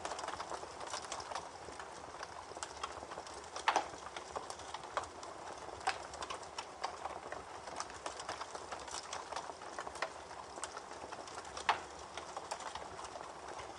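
Campfire crackling with irregular snaps and pops, two sharper pops standing out about four seconds in and near the end, over the steady rush of a babbling creek.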